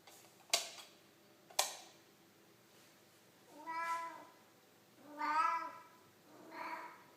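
Female cat in heat calling: three drawn-out meows a little over a second apart, the middle one the loudest. Two sharp knocks come before the calls, in the first two seconds.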